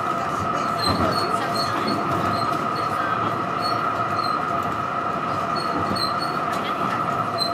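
Melbourne tram running at steady speed, heard from inside: a steady high whine with a second, lower tone over the rumble of wheels on rail.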